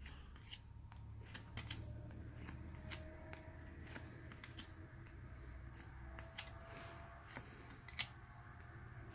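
Faint flicks and ticks of baseball cards being slid one by one from the front to the back of a hand-held stack, with a few sharper clicks among them, over a low steady hum.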